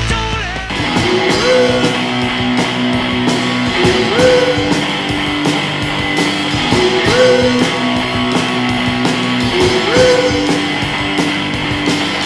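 Background rock music with guitar and drums, a phrase with sliding notes repeating about every three seconds over a steady beat.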